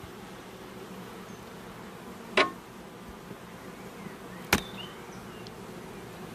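Honeybees buzzing steadily over an open hive, with two sharp clicks about two seconds apart as a hive tool knocks against the wooden frames.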